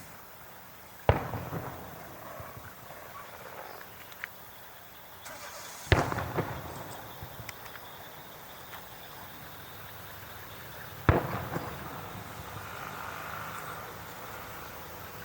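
Aerial fireworks shells bursting: three loud bangs about five seconds apart, each followed by a brief spattering tail.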